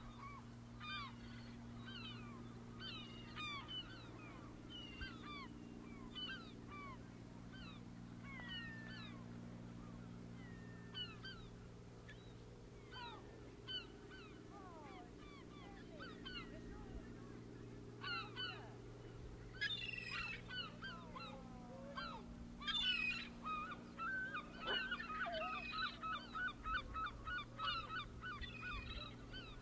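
Birds calling over and over in short, sliding calls, with a fast run of repeated notes near the end, over a steady low engine hum. The calls grow louder and busier about two-thirds of the way through.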